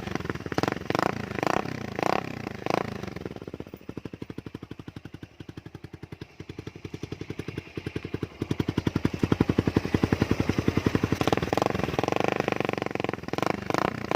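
Motorcycle engine running through a Daeng aftermarket exhaust pipe with its silencer insert still fitted. It gives a few quick throttle blips, then settles into a steady, even idle pulse from about four seconds in, and is blipped again near the end.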